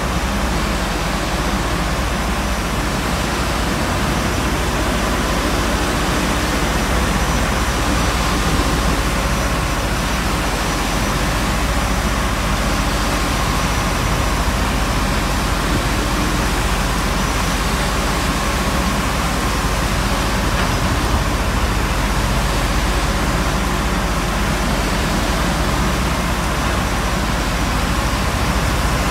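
Steady rush of wind and seawater washing across a tanker's open deck as waves break over it in rough seas, with wind buffeting the microphone.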